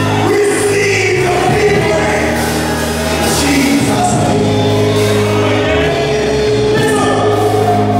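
Live gospel music: a man singing through a microphone over an amplified backing, with other voices singing along in held notes.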